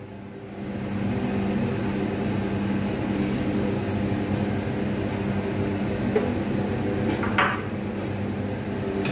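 Fine semolina poured into hot ghee in a kadhai, then a steady frying hiss as it sits in the fat. Two light clinks, about four and about seven seconds in.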